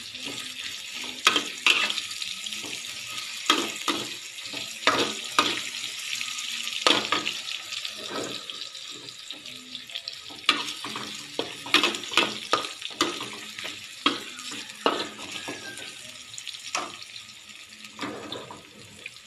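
Chopped chilies, shallots and lemongrass sizzling in hot oil in a steel wok, with a spatula scraping and knocking against the pan at irregular intervals as they are stirred. The aromatics are being fried until crisp and golden.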